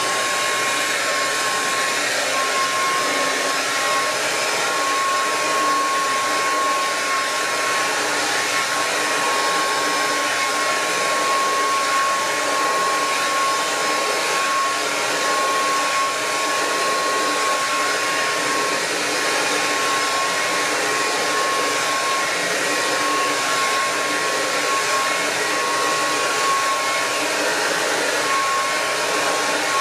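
Handheld hair dryer with a comb attachment running steadily while blow-drying hair: a constant rush of air with a thin, steady whine.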